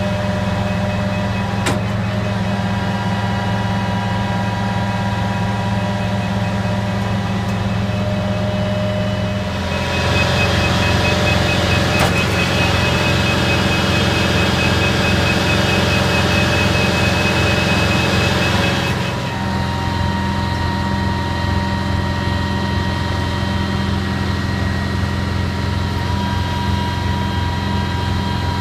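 Detroit 450 hp diesel engine of a Pierce Arrow ladder truck running steadily; for about nine seconds partway through it runs louder and faster before settling back.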